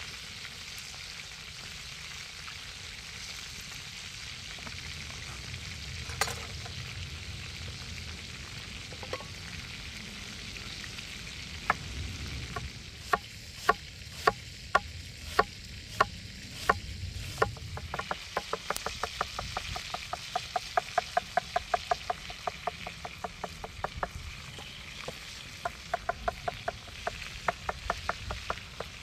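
Coiled homemade sausages sizzle steadily in a pan over a wood fire. About twelve seconds in, a large knife starts chopping an onion on a wooden cutting board. The first strokes are slow and sharp, and from around two-thirds of the way through they turn into a quicker, steady chopping.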